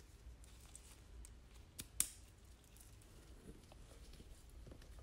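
Faint handling of a leather handbag and its metal lock hardware as the padlock is being fitted. There are two sharp clicks close together about two seconds in, the second much louder, then soft rubbing and ticks of leather and hardware.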